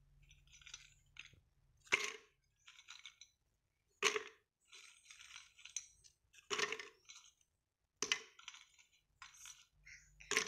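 Oreo cookie wafers, cream scraped off, dropped by hand into an empty plastic blender jar. They land in five sharp clicks about two seconds apart, with lighter clicks and rattles between as more cookies go in.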